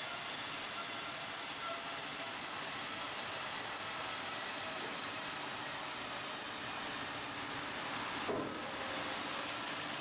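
Sawmill machinery running: a steady hissing din with faint constant whining tones, and a brief sound falling in pitch a little after eight seconds.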